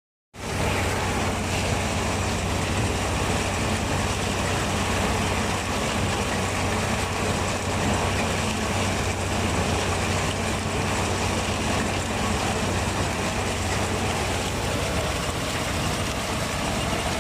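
A large vehicle engine running steadily, with an even low hum and no change in speed. It starts abruptly just after the beginning.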